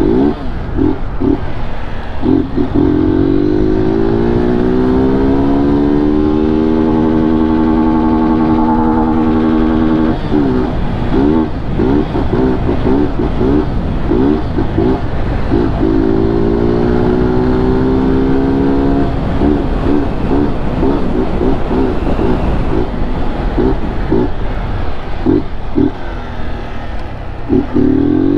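BMW G 310 GS single-cylinder motorcycle with a loud aftermarket 'mangote' exhaust, under way. The engine note rises through two long pulls and holds high. Between the pulls come stretches of rapid stuttering cuts, like the 'cortezão' (rev-limiter cut) the rider points out just before. Wind noise runs underneath.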